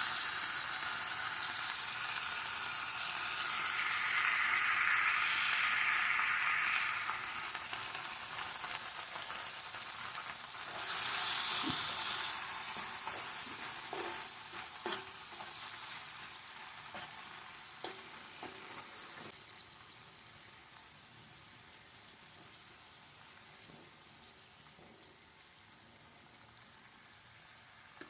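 Food frying in a pan, a dense sizzle that swells briefly and then gradually dies down, with a few light clicks in the middle.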